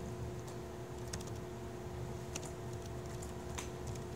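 Laptop keyboard keys tapped in short, irregular runs of typing, over a steady low hum in the room.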